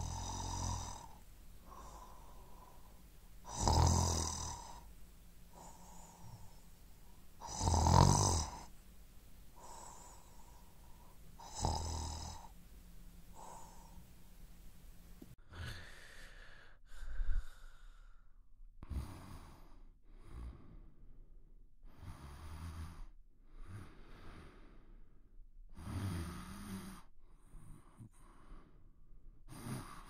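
A man snoring in deep sleep, with loud snores about every four seconds. About halfway through a different recording takes over, with quieter, quicker snoring breaths roughly once a second.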